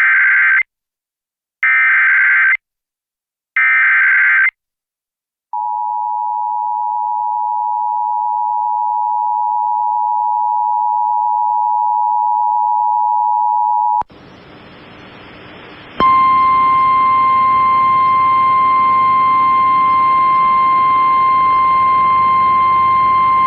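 Emergency Alert System activation for a severe thunderstorm warning. Three short bursts of the screeching digital SAME header, about two seconds apart, are followed by the steady two-tone EAS attention signal for about eight seconds. After a moment of faint hum, a single steady tone sounds over hiss: the NOAA Weather Radio 1050 Hz warning alarm, relayed from the weather service feed.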